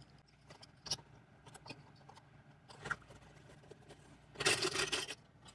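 Small metal binder clips clicking and jangling as they are handled and clipped onto the edge of a folded leather knife sheath, in scattered faint clicks with a louder rattle of clips about four and a half seconds in.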